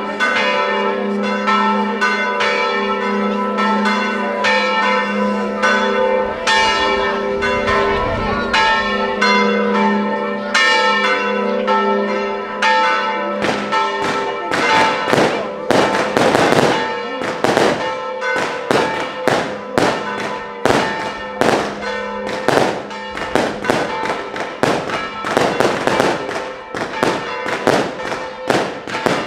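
Church bells ringing. About halfway through, a long string of firecrackers starts cracking in rapid succession over the bells.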